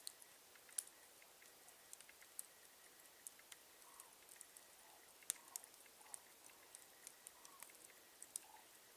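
Wood campfire crackling: irregular sharp pops and snaps of burning wood over a near-silent background.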